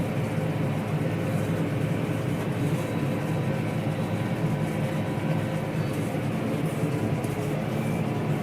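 Farm tractor engine running steadily while it drives a round hay baler, an even machine hum with no change in pitch.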